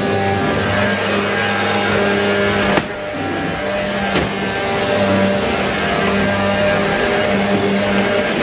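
Bissell PowerForce Helix Turbo upright vacuum cleaner running steadily. There is a knock about three seconds in, followed by a brief dip in the sound, and another knock about a second later.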